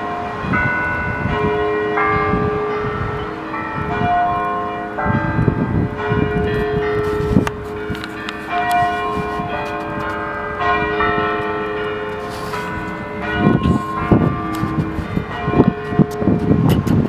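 Church bells ringing, many different notes struck one after another and ringing on over each other.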